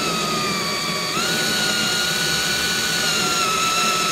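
Cordless drill running steadily as it bores a hole into a pressboard board. Its motor whine steps up in pitch about a second in.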